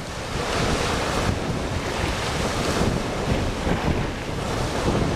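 Small waves washing onto a sandy beach, with gusty wind buffeting the microphone.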